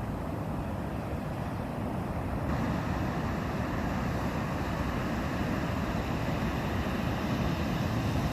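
Sea surf at the shore: a steady rush of waves breaking and washing, growing a little louder and brighter about two and a half seconds in.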